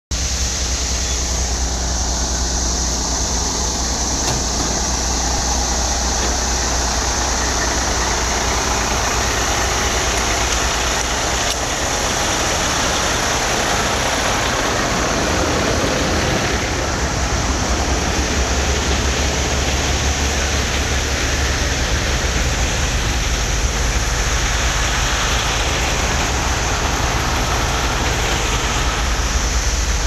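Vacuum truck running steadily: the engine and vacuum blower make a continuous loud drone with a hissing rush over it. The low rumble grows heavier about halfway through.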